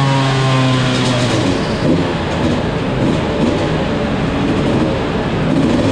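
Beta RR200's single-cylinder two-stroke engine running under load on a chassis dyno. A steady, high engine note turns rough and uneven about a second in, and the steady note returns near the end.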